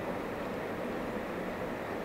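Newag Dragon 2 (E6ACTa) electric freight locomotive approaching with a loaded coal train: a steady, unbroken running noise of the locomotive and its wheels on the rails.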